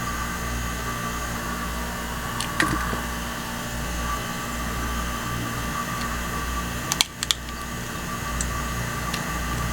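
A steady mechanical hum, with a sharp click a little over two seconds in and two more clicks about seven seconds in.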